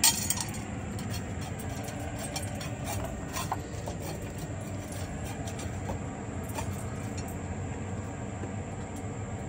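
A sharp metallic clink against a stainless steel dog bowl at the very start, then a few light scattered clicks and clinks as a dog eats from the bowl, over a steady low background rumble.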